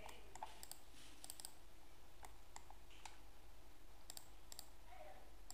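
A dozen or so sharp, scattered clicks of a computer mouse and keyboard, some in quick pairs, over a low steady hum.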